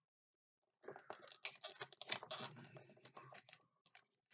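Quick small clicks and scratchy plastic rustling as nail clippers are worked at a zip tie holding a toy truck in its cardboard-and-plastic packaging, starting about a second in and dying away near the end.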